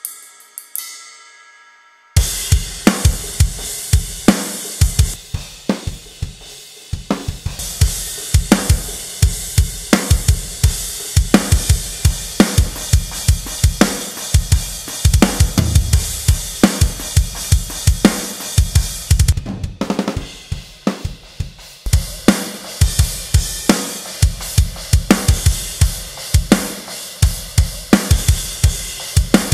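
Sampled metal drum kit from Superior Drummer 3 (The Metal Foundry SDX) playing a programmed groove: a ringing tail dies away, then about two seconds in the full kit comes in with fast kick drum strokes, snare, hi-hat and cymbals.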